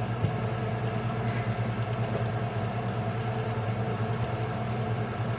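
Vehicle engine running steadily, heard from inside the cabin as a constant low hum.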